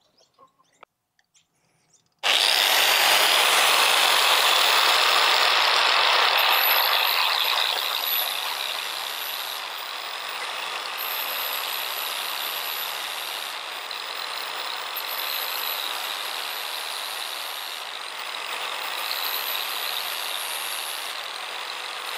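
Angle grinder with a flap sanding disc switched on about two seconds in, its whine rising as it spins up, then grinding along the edge of a steel mower blade to sharpen it: a steady, harsh grinding that drops a little in level about eight seconds in.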